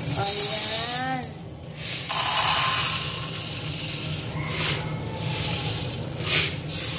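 A scouring sponge rubbing the inside of a wet stainless-steel pot, a scrubbing hiss with a squeak that bends up and down about a second in. A second, longer scrubbing or rustling stretch follows, then a few short scrapes or rattles near the end.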